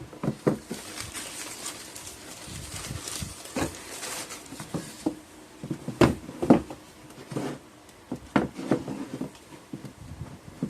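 Handling noise: irregular knocks, taps and rustling, loudest about six seconds in.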